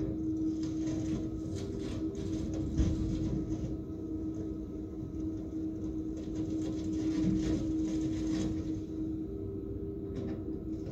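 Komatsu hydraulic excavator running with a steady drone while its bucket and thumb crunch and crack through demolition debris, with a sharp knock about three seconds in.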